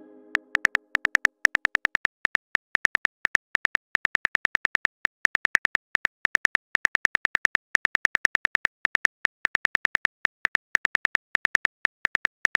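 Rapid, uneven keyboard clicks of a texting app's typing sound effect, several a second, as a message is typed out.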